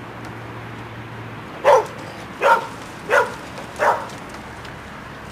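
A dog barks four times in a quick series, about two-thirds of a second apart, starting a little under two seconds in.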